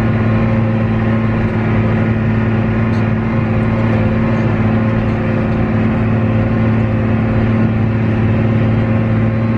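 Combine harvester running steadily in a corn field: a constant, even engine and machinery drone that holds one pitch throughout.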